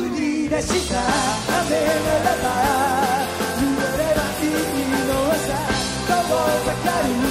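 Live rock band playing a song: a male lead vocal sung over electric guitars, drums and keyboards.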